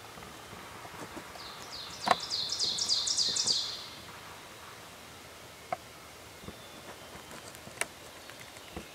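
A songbird singing a quick run of high, down-slurred notes for about two seconds, with a sharp click near its start and a few fainter clicks later.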